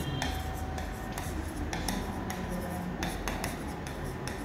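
Stylus tapping and rubbing on the glass screen of an interactive display as words are handwritten: a string of short, sharp clicks at irregular intervals.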